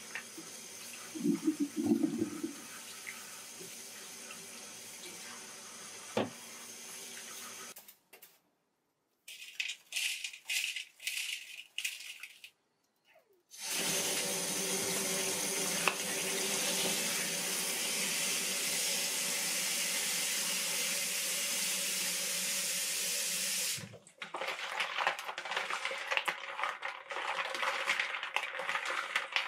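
Kitchen tap water running into a stainless steel sink while hands rub and rinse live land snails in a colander and bowl. There is choppy splashing and rubbing, with short gaps about a third of the way in. A loud, steady stream runs for about ten seconds through the middle, then irregular splashing as the snails are scrubbed in the bowl.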